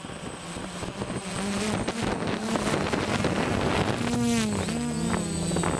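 DJI F450 quadcopter's motors and propellers buzzing steadily. The buzz swells over the first second or so, and about four seconds in its pitch briefly rises and falls.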